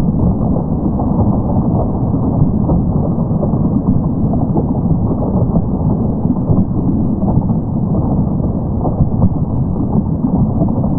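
Studio audience applauding: steady, dense clapping that sounds dull and muffled, with no treble.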